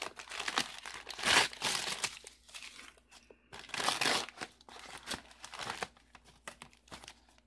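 Packing paper being crumpled and rustled by hand in irregular bursts, loudest about a second and a half in and again around four seconds in.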